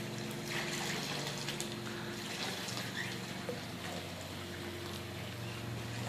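Water trickling steadily from a raised spa's spillover into a swimming pool, with a faint steady hum beneath it.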